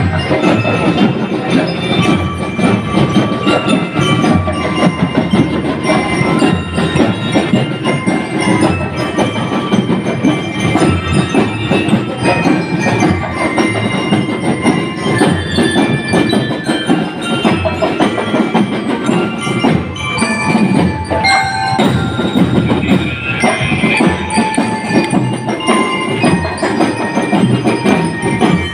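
Drum and lyre corps playing a marching tune: bell lyres ringing out the melody over a steady beat of marching drums.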